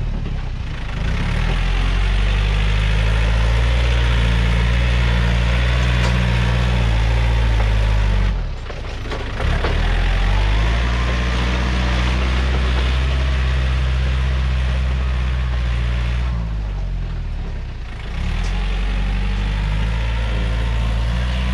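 Yanmar EF514T tractor's diesel engine running steadily. The note dips and shifts briefly near the start, again about eight to nine seconds in, and around seventeen seconds in, then settles back.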